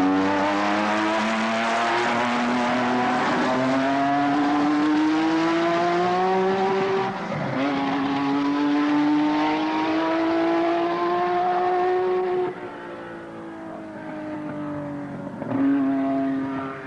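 Ford Cosworth 1.5-litre V6 twin-turbo Formula One engine running under load as the car drives off. The note climbs steadily, drops once at a gear change about seven and a half seconds in, and climbs again. About twelve seconds in it falls away and gets quieter as the car backs off into the distance, with a short burst of throttle near the end.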